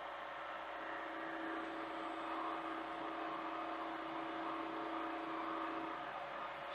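Hitachi mini excavator running steadily, with a steady whine over its engine noise; the whine stops about six seconds in.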